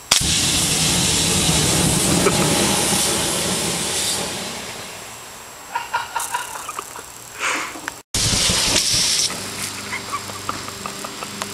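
A hairspray aerosol can, punctured by an air-rifle pellet, venting with a loud hiss as the spray burns. The hiss starts abruptly and fades over about five seconds into crackling and small pops. After a cut, a second burning can hisses loudly for about a second, then crackles.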